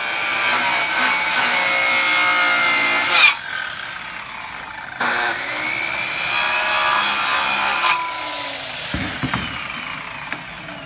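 Corded circular saw cutting through a wooden framing board in two passes, its motor whining over the cutting noise. The first pass ends sharply about three seconds in and the second starts about two seconds later. Near the end the whine falls in pitch and fades as the blade spins down.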